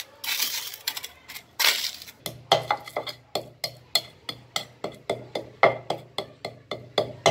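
An upturned steel bowl pressed and rubbed against a steel plate, crunching and scraping as it crushes fried edible gum (gond). About two seconds in this gives way to a wooden pestle pounding almonds in a clay mortar, with steady thumps about three times a second.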